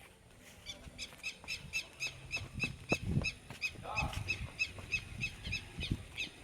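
A bird calling in a quick, even series of short high chirps, about three or four a second, with a few low thuds in the middle.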